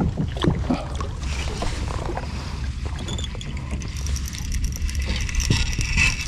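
Wind rumbling on the microphone, with water sloshing around a kayak and scattered knocks against the hull.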